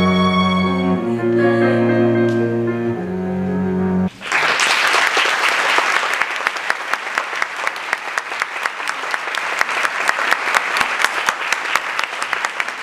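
Final held chords of a small keyboard-and-strings ensemble (keyboard, viola, two cellos) ending about four seconds in, followed by a theatre audience applauding steadily.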